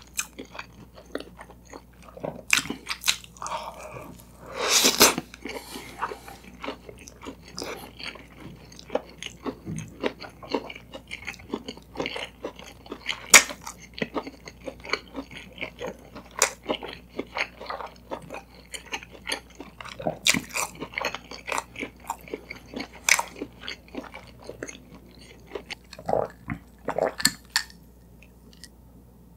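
Close-miked chewing of toasted bread crust: soft crunches and wet mouth clicks, with one louder crunch about five seconds in. Near the end he sips from a mug.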